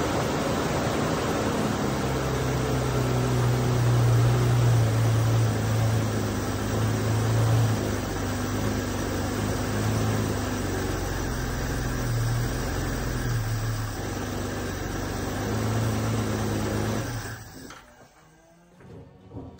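Toyota Crown 'Kujira' carburetted engine idling steadily, then switched off about 17 seconds in, followed by a thud at the very end.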